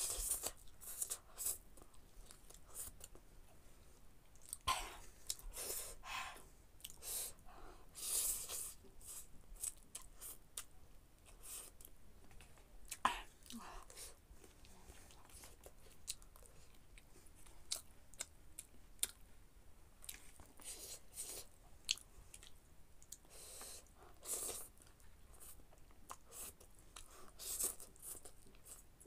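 A person eating noodles: chewing and slurping, with irregular short wet smacks and clicks.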